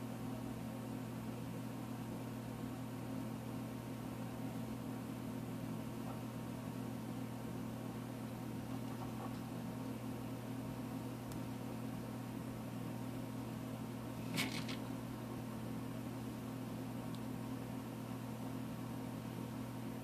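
Steady low hum, with one short sharp click about fourteen seconds in.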